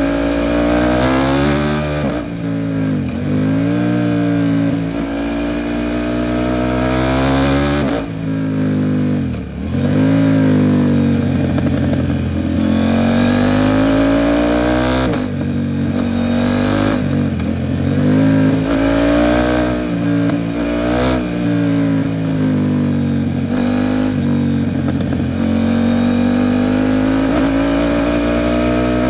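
KTM 790 Duke's parallel-twin engine through an Arrow Pro Race titanium exhaust, revving up and falling back again and again as the bike is ridden through the gears. The revs drop sharply several times, as when easing off or downshifting.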